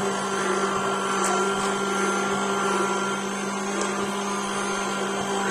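Handheld immersion blender running steadily in a bowl, its motor humming while it whips instant coffee, sugar and hot water into a thick foam.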